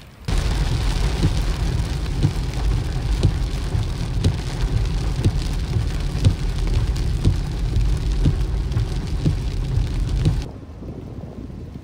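Heavy rain pouring onto a flooded street: a dense hiss with many sharp taps of drops and a deep rumble beneath. It starts abruptly just after the start and falls to quieter rain about ten and a half seconds in.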